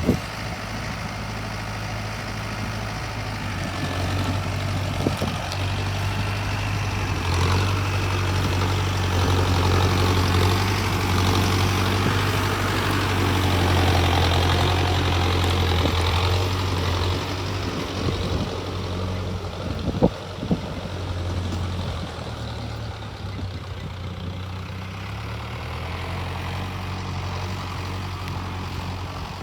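Mahindra Arjun Novo 605 DI tractor's four-cylinder diesel engine running steadily, louder and busier from about 7 to 17 seconds in. Near the 5 and 20 second marks there are a few sharp knocks.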